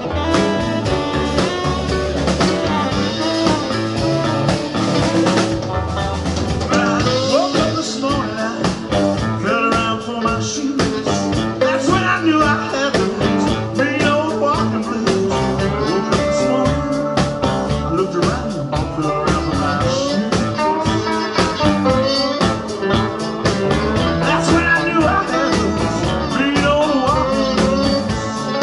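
Live blues band playing with electric guitars, bass, drums, keyboard and saxophone, a steady drum beat under bending guitar lines.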